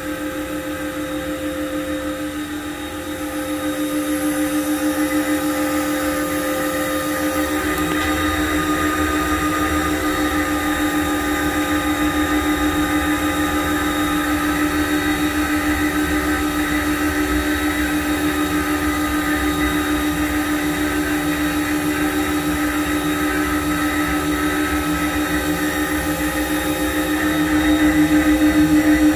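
Haas VF-0 CNC vertical machining center running: a steady machine hum with several held tones, which gets louder about three seconds in and again near the end.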